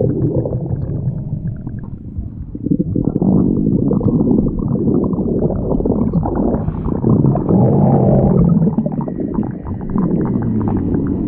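Stomach growling: a long, continuous low rumble with gurgles, easing briefly about two seconds in and then growing louder again.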